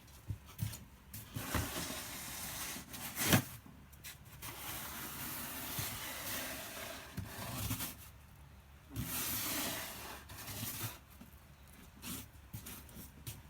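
Snow shovel scraping and pushing through heavy snow in several long strokes, with a sharp knock of the blade about three seconds in.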